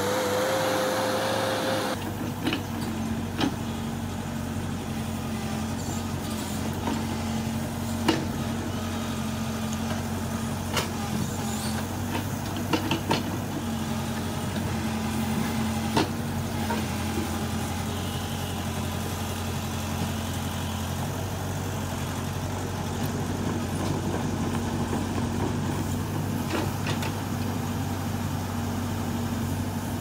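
Diesel engine of heavy earthmoving machinery running steadily, with several sharp clanks and knocks in the first half. A different steady whir fills the first two seconds, then gives way to the engine.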